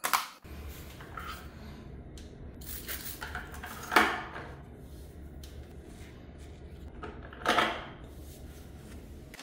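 Plastic toilet brush and its wall-mounted holder knocking together as the brush is handled in the holder, two knocks about three and a half seconds apart, over a steady low hum.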